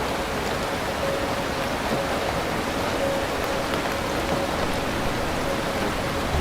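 Heavy rain falling steadily: a dense, even hiss of drops with no rumble of thunder.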